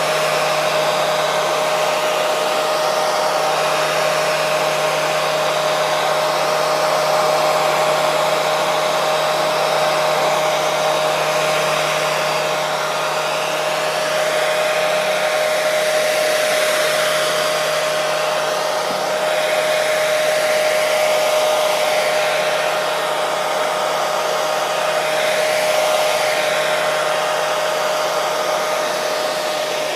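Electric hair dryer running steadily: an even rush of blown air with a steady whine in it, swelling and easing slightly now and then.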